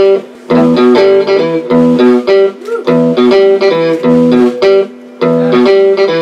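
Electric guitar playing the song's intro riff: short, choppy chord stabs separated by brief gaps, the phrase repeating about every two seconds.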